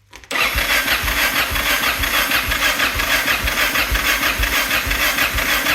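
Yamaha motorcycle engine being turned over by its electric starter for about five and a half seconds with regular low thumps, without catching, then stopping. The carburetor has no fuel in it yet.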